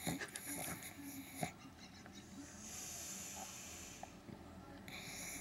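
Sleeping pug breathing between snores: a few soft snuffles and a click in the first second and a half, then a long, faint, wheezy breath lasting about two seconds.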